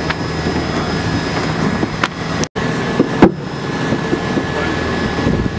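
Steady rush of wind and water aboard a Volvo Ocean 65 racing yacht under sail, with a few sharp knocks from deck gear about two and three seconds in. The sound cuts out for a moment just before the knocks.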